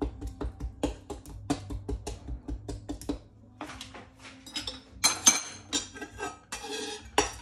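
A pointed kitchen tool repeatedly stabbing a raw whole duck and tapping the cutting board beneath, about three to four sharp taps a second, pricking the skin so the sauce can soak in. A metallic clink with a brief ring about five seconds in.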